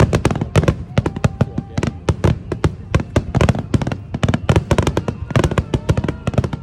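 A rapid barrage of aerial firework shells bursting, several loud bangs a second without a break, typical of a grand-finale volley.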